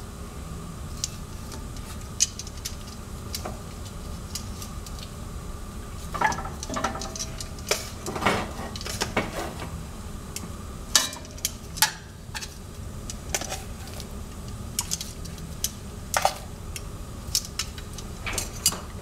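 Metal tongs clicking and tapping against an enameled cast-iron Dutch oven as raw chicken thighs are laid into the hot oil, in scattered irregular clinks over a steady low hum.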